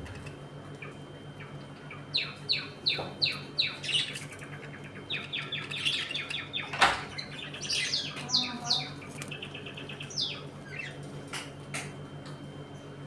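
Budgerigars chirping: a quick run of falling chirps, then chattering warbles and a few more chirps, with one sharp click midway. A steady low hum runs underneath.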